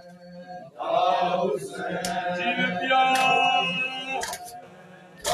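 Men's voices chanting a noha (Muharram mourning lament), with sharp slaps of hands on bare chests (matam) keeping time about every second and a half. The chant swells in about a second in and fades near the end.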